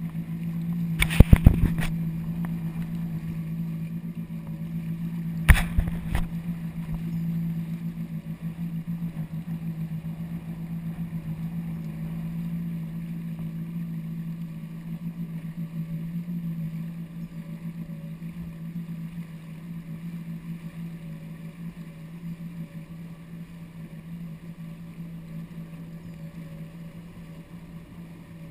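Yamaha WaveRunner personal watercraft engine running steadily at low cruising speed, heard from the rider's seat, getting quieter in the last third as it slows. A few sharp knocks about a second in and another near six seconds.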